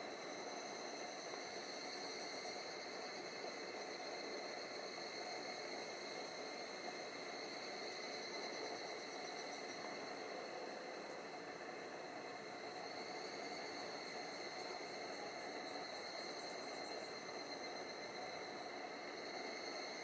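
Cicadas calling: a steady chorus of several high held tones, with a very high, fast-pulsing buzz over it that stops about ten seconds in and comes back from about fourteen to seventeen seconds.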